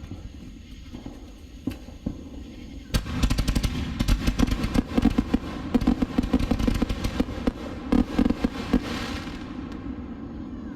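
A rack of 4-inch aerial firework shells firing in quick succession: a dense run of loud launches and bursting cracks that starts about three seconds in, with crackle and hiss from the bursts. It cuts off suddenly at the end.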